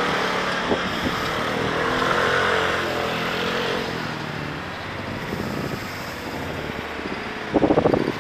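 Motorcycle engine running as it moves slowly through city traffic, with a steady rush of wind and road noise. Near the end comes a short, louder, rapidly pulsing engine burst.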